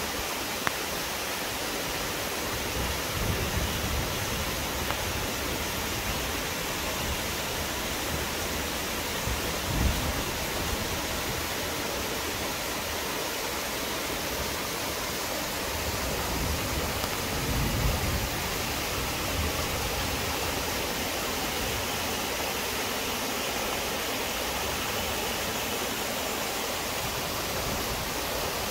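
Waterfall in a mountain gorge: water pouring in a steady, even rush. A few brief low thumps come a few seconds in, around ten seconds and near eighteen seconds.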